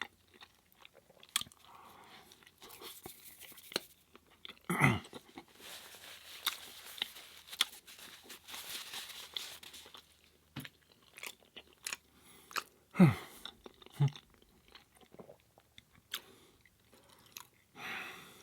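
Close-miked chewing and mouth sounds of a person eating a veggie burger with sauce: scattered small wet clicks and smacks, with two short louder low mouth sounds about 5 s and 13 s in.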